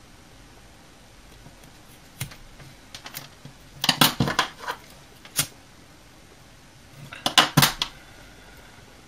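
Scissors snipping through paracord, then the scissors and a lighter clattering as they are handled and put down on a table, in two short bursts of sharp clicks.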